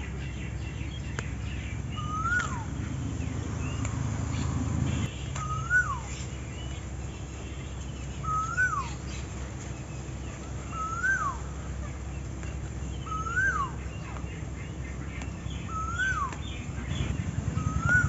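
A bird repeating one short whistled call, rising then quickly falling, about every two and a half seconds. Under it a low steady hum cuts off suddenly about five seconds in.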